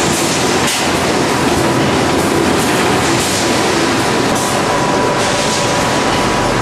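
Webster Griffin high-speed bag palletiser running with a loud, steady mechanical clatter as filled feed bags are carried through it. A thin steady whine runs through it, and short hisses repeat every half second or so.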